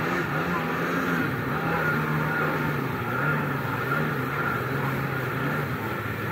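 1998 Kawasaki SXi Pro stand-up jet ski's two-stroke engine running under way, its pitch rising and falling with the throttle, over the hiss of water spraying off the hull.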